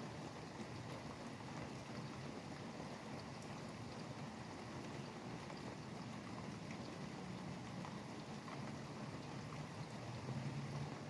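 Steady rain falling, with scattered drop ticks, over a low rumble of highway traffic that swells briefly near the end.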